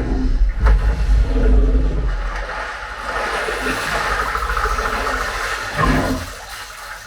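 Film soundtrack playing through a Sonos Arc soundbar and Sonos Sub Gen 3 subwoofer. It starts with heavy deep bass, turns to a rushing noise with little low end, then has a brief bass swell and drops away just before the end.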